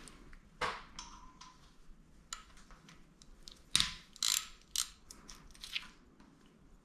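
Metal hand tools being handled during engine work: a scattering of sharp metallic clicks and knocks, the loudest few coming about four to five seconds in.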